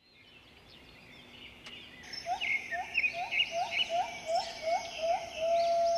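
Tropical forest ambience fading in: many birds chirping and calling. A short rising call repeats about two to three times a second, and a longer held whistling note begins near the end.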